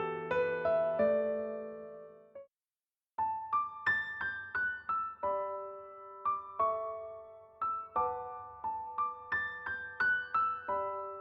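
Background music on electric piano. A sustained chord fades out to a brief silence about two and a half seconds in, and then a light melody of separate plucked-sounding notes begins.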